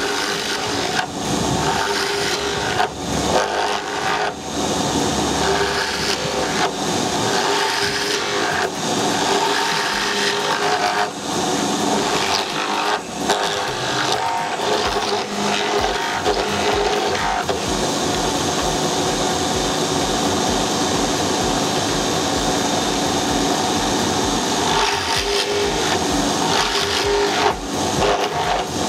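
Homemade horizontal mortising machine: an electric motor spins a drill bit in a chuck while a wooden board is pushed into it by hand, cutting a mortise. A steady motor hum runs under uneven rasping and chattering as the bit bites into the wood, smoother for several seconds in the middle.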